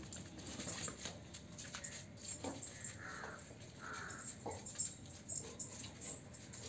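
Young German Shepherd whimpering faintly: two short high whines about three and four seconds in.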